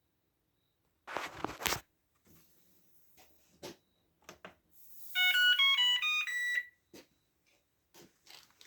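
A Whirlpool Cabrio dryer's electronic control panel plays a short chime: a quick run of beeping notes at changing pitches lasting about a second and a half. Before it come a brief clatter and a few light clicks.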